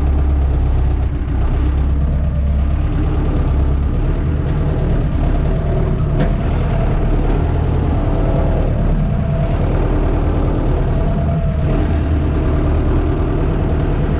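Renault 651 tractor's diesel engine running steadily at low revs while the tractor manoeuvres, with only slight changes in engine note.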